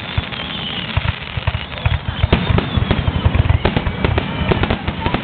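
Aerial fireworks shells bursting in the finale of a display. Booms and sharp cracks come sparsely at first, then pile up into a dense, rapid barrage from about two seconds in.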